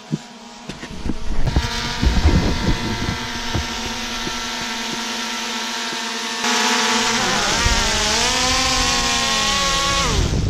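Quadcopter drone's propellers whining close by, louder from about a second and a half in, with a rushing noise from its downdraft joining about six seconds in. In the last few seconds the pitch wavers and then falls as the drone is caught by hand and its motors slow.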